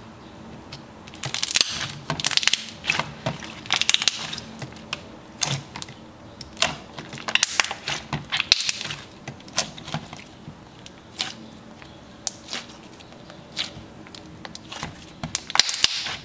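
Thick, glossy slime squished and pressed by hand, giving irregular clusters of sharp pops and crackles.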